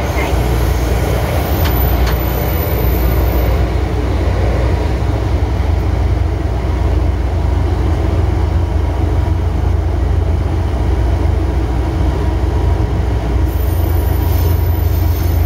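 Inside the cab of a JR Freight DF200 diesel-electric locomotive on the move: steady, heavy low rumble of the engine with wheel and rail noise.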